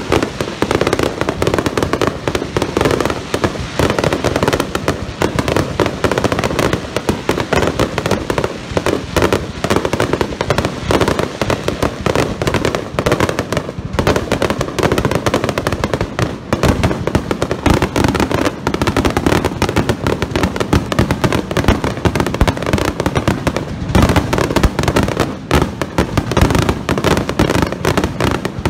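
Aerial firework shells bursting in a dense, continuous barrage: a rapid, unbroken string of bangs with no pauses, the grand finale of a fireworks display.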